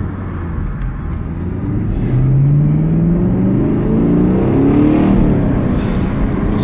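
6.2-litre LT1 V8 of a 2018 Camaro SS 1LE, heard from inside the cabin, pulling as the car accelerates. Its note rises steadily in pitch and gets louder from about two seconds in.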